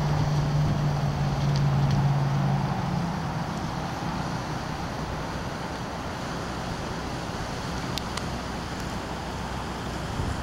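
Wind noise on the microphone with a steady low hum that stops about three seconds in, and a couple of faint clicks.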